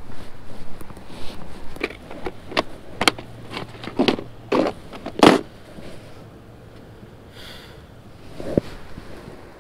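Close handling noises of fishing tackle and clothing as a bucktail jig is handled: a run of irregular clicks, knocks and rustles, then a brief scratchy rustle and a single low thump near the end.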